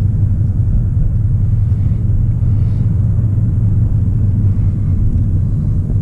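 Steady low rumble of a moving car, road and engine noise without change.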